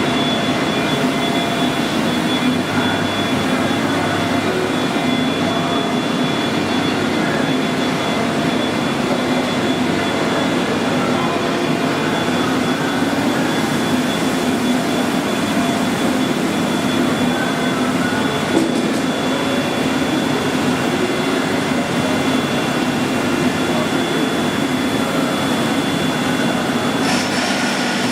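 Union CBFT 105 table-type horizontal boring and milling machine running under power: a loud, steady mechanical hum with a thin high whine, and a further high-pitched whine joining about a second before the end.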